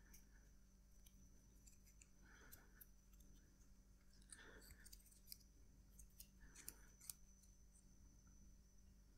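Faint handling noises from a plastic zip tie being threaded around a bicycle frame: three soft rustles about two seconds apart and a few small clicks, over a faint steady hum.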